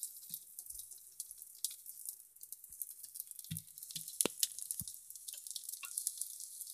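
Egg and oil sizzling and crackling on a hot tawa, with a few soft knocks of a steel spatula pressing the chapati down onto the egg about halfway through.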